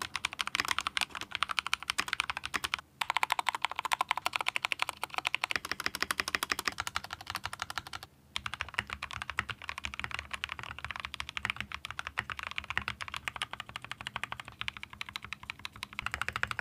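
Fast, continuous typing on mechanical keyboards for a side-by-side sound test: the Akko 3068B custom build with lubed Akko CS Jelly Purple switches and a second mechanical keyboard. The typing cuts out briefly twice, and after the second break, about eight seconds in, the keystrokes sound deeper and less bright.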